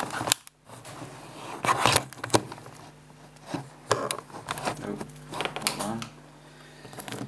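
Scattered clicks, taps and knocks of a phone and a thin tool being handled on a hard surface, over a faint steady hum.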